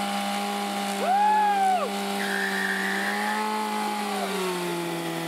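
Kawasaki Ninja sport bike engine held at high revs, with a quick rev up and back down about a second in and a slower one about three seconds in. The held pitch sags slightly near the end.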